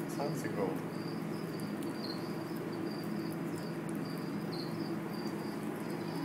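Insects chirping in a steady run of short, high chirps, about two a second, over a low steady hum.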